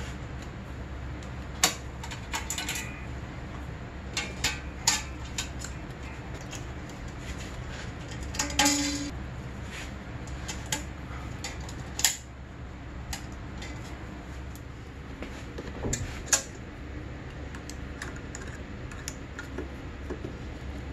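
Steel exhaust springs being stretched and hooked onto a snowmobile's exhaust pipe with a spring-puller tool: scattered sharp metal clicks and clinks, with a longer metallic rattle about eight and a half seconds in, over a steady low hum.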